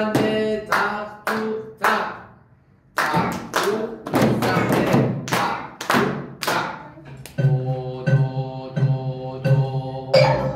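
Children clapping and beating small hand drums in a steady rhythm, about two strikes a second, with a thicker run of strikes in the middle. About seven seconds in, wooden xylophones take over, playing repeated low ringing notes on a steady beat.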